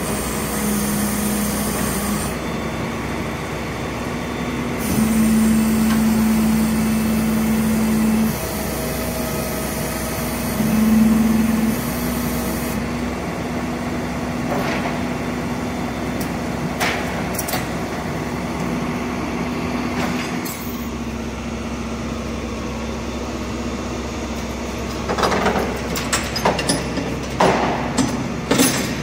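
A motor or engine running steadily with a constant hum, swelling a little in places, with a few sharp knocks or clatters near the end.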